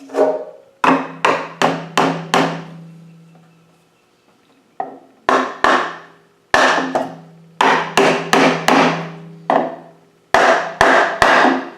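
Hammer blows on wood, in quick runs of four or five strikes about 0.4 s apart. Each strike rings briefly, and a low hum lingers under the runs.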